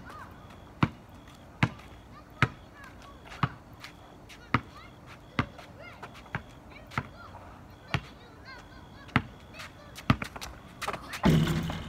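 Basketball being dribbled on asphalt: sharp single bounces at a steady pace of roughly one a second. Near the end comes a brief, louder rush of noise.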